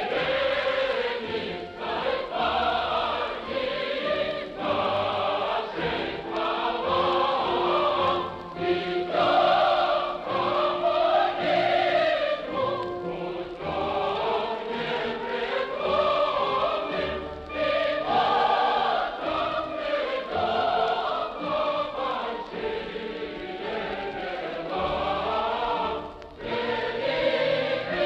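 A choir singing, with its sustained sung phrases rising and falling without a break.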